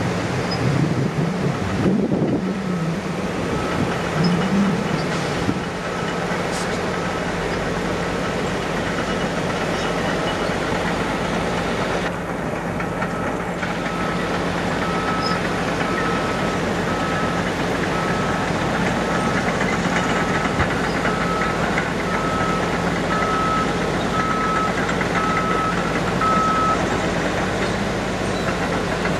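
Heavy diesel dump truck engine idling steadily, while a reversing alarm beeps over and over, about one and a half beeps a second, and stops near the end.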